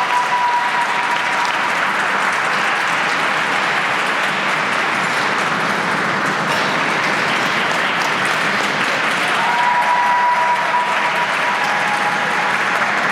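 Audience applauding steadily in the stands, with a short held high tone just at the start and another about ten seconds in.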